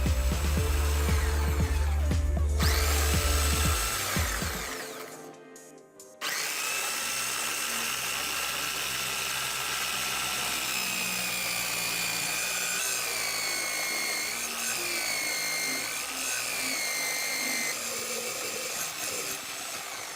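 Music with a bass line fades out over the first few seconds. Then a small power tool's motor starts up with a steady high whine. Its pitch dips and recovers a few times as if under changing load.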